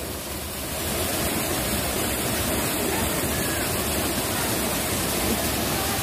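A small waterfall and stream rushing over rock ledges, a steady, even sound of water.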